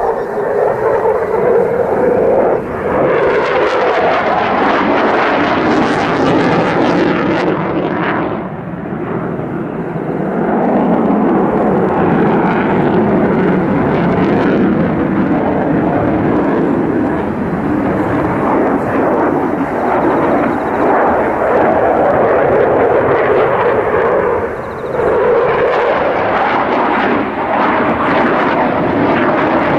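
JASDF F-15J fighter's twin turbofan engines running loud with a rough, crackling jet noise as it flies a banking display turn. The noise holds steady, dipping briefly about eight seconds in and again near twenty-five seconds.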